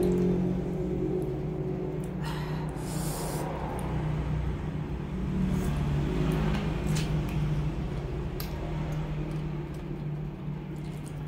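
Close-up eating sounds of someone biting and chewing boiled chicken dipped in sauce, with scattered short mouth clicks and smacks and a brief hissy burst about two seconds in. A steady low hum runs underneath.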